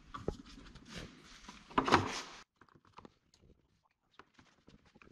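Hand-tool clicks and knocks on plastic trim clips at the radiator support, with one louder clatter about two seconds in. After that only faint scattered ticks.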